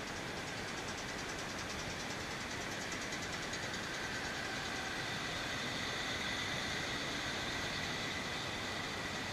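A small diesel locomotive idling steadily at a standstill, with a thin high steady whine and fast regular ticking above the engine sound.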